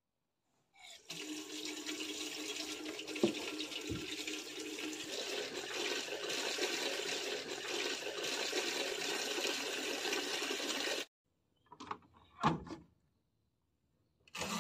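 Water rushing steadily into a top-loading washing machine's tub as it fills, with a low hum under it for the first few seconds; the rush cuts off suddenly, followed by a couple of short knocks near the end.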